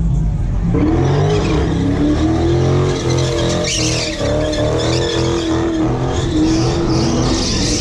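A car's engine held at high revs in a burnout, its pitch wavering up and down as the tyres spin, with tyre screech over it. The revving comes in about a second in.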